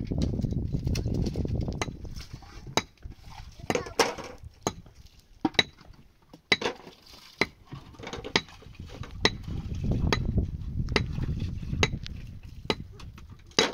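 Sharp metallic clinks at a steady pace of about one a second, with a low rumble at the start and again later on.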